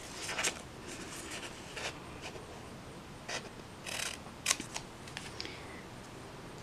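Scissors snipping through printer paper: several short, irregular cuts as the corners of a small paper label are rounded off.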